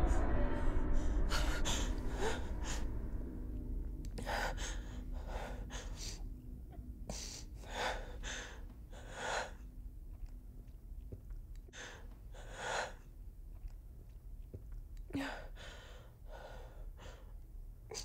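A person breathing hard in bed: short, gasping breaths in and out at uneven intervals, growing sparser toward the end, over a faint low hum. A loud low sound fades away during the first few seconds.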